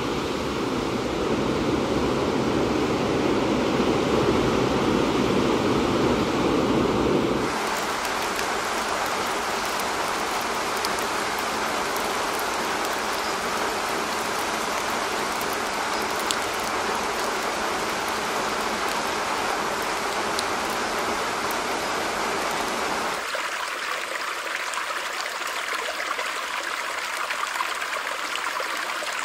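iOS 15's built-in Background Sounds play one after another as the selection changes. First comes 'Ocean', a surf-like noise heavy in the low end. About seven seconds in it cuts abruptly to 'Rain', an even hiss with faint patter ticks. About 23 seconds in it cuts to 'Stream', a thinner, higher trickling water sound with no low end.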